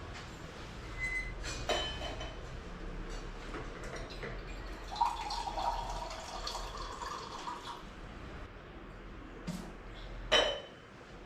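Kitchen utensils clinking against a bowl, with water poured for a few seconds about five seconds in and a louder clatter near the end.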